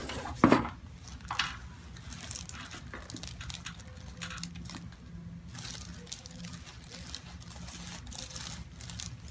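Soft rustling and crinkling of hands, clothing and table covering while a patient's head and neck are positioned on a chiropractic table before an adjustment.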